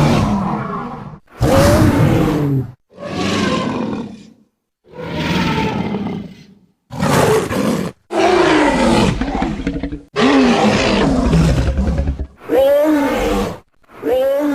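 Tyrannosaurus rex roar sound effects, one after another: about eight loud roars, each a second or two long, with short silent pauses between them. Several fall in pitch as they fade.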